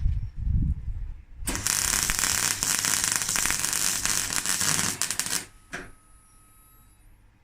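MIG welding on steel, a run of steady crackling lasting about four seconds that stops abruptly, after a few low knocks at the start.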